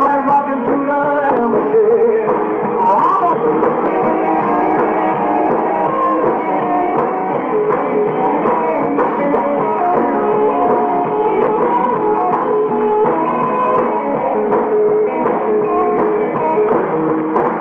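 Rock and roll band playing live, in a dull, lo-fi recording with no high end.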